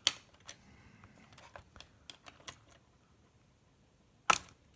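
Small clicks and ticks of a smartphone being handled and pried as its screen is pulled up with a suction cup, then one loud sharp click about four seconds in, typical of the iPhone 5 screen's clips letting go.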